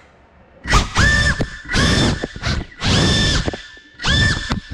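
FPV quadcopter's motors throttled up in short bursts, about four times: a high whine that sweeps up in pitch, holds, then drops off, as the drone lurches unsteadily.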